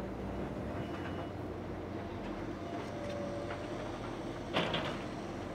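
Diesel engine of a Kobelco excavator running steadily while it digs, with a sharp metallic clank about four and a half seconds in.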